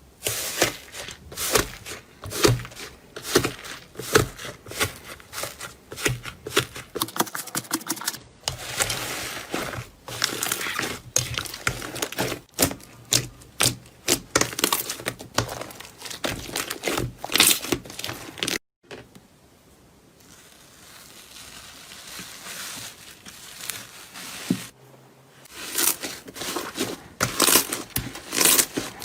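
Slime worked by hand, giving dense crackling and clicking pops. A sudden break a little past halfway is followed by several seconds of quieter, softer sound before the crackling picks up again.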